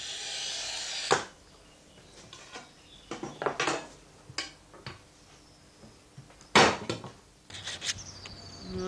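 A glass cutter scoring a glass plate along a steel ruler: a scratchy hiss lasting about a second that ends in a sharp click. Then scattered knocks and clacks of glass and tools on a wooden workbench, with one loud sharp knock about six and a half seconds in. Near the end, hand rubbing of a glass plate begins.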